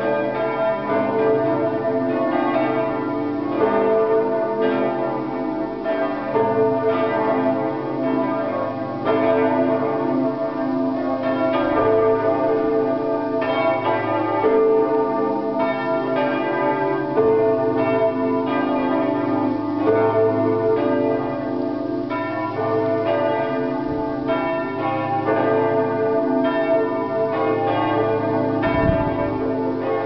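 Full peal of several church bells ringing together, their strikes at different pitches overlapping in a continuous clangour.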